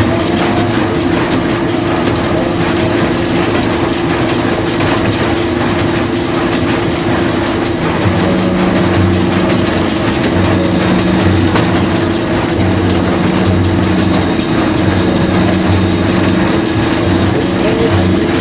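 Tractor and hay-handling machinery running steadily, a constant hum with mechanical clatter; a low rhythmic pulsing sets in about halfway through.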